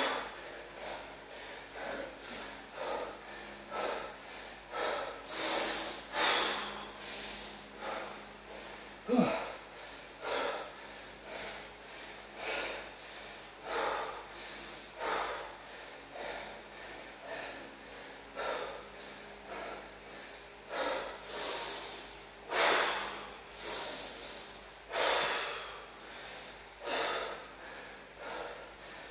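A man panting hard after exertion, taking loud, fast breaths in and out at roughly one a second or a little slower. About nine seconds in there is one short voiced grunt.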